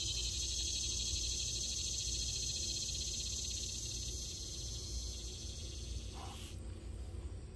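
Insects singing in a steady, high-pitched, rapidly pulsing chorus that stops about six and a half seconds in, over a low rumble.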